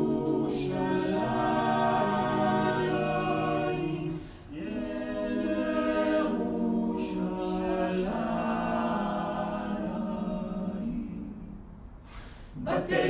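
Small mixed choir of men's and women's voices singing a cappella in sustained chords. The phrases break briefly about four seconds in, and the sound fades near the end before the voices come back in.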